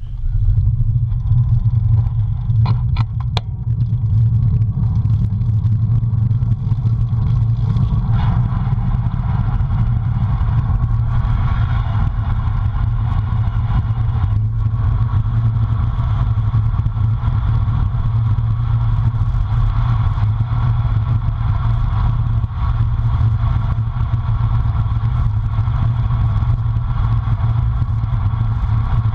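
Wind buffeting the microphone of a camera mounted on a bicycle rolling along at speed: a steady heavy rumble, with a few sharp clicks about three seconds in.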